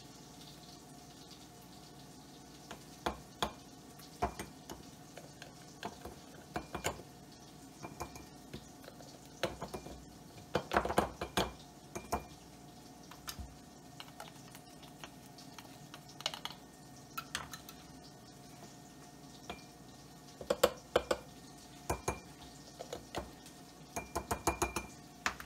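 Plastic measuring spoon scooping ground cumin from a spice jar, scraping and tapping against the jar's rim and a glass jar: scattered light clicks and clinks, with bursts of quick taps around the middle and near the end.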